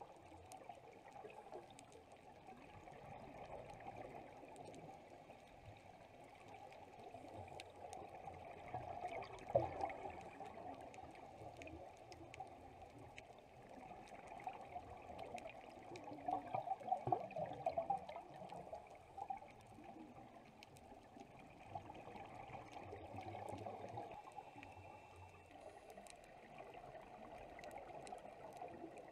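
Faint, muffled underwater sound of a scuba dive: gurgling bubbles from the diver's exhalations, swelling about ten seconds in and again around seventeen seconds, over a steady hiss with scattered faint clicks.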